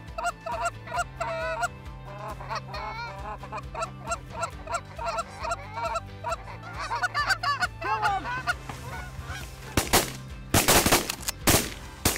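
Canada goose honking and clucking, many short calls in quick succession. About ten seconds in, a volley of several shotgun blasts in quick succession.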